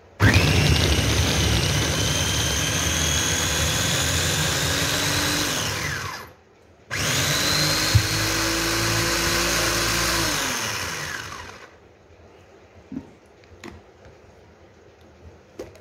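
Electric mini chopper's motor running in two pulses of about six and four seconds, chopping beetroot. Each pulse starts with a rising whine, runs steady, then winds down as the top is released. A few light clicks near the end.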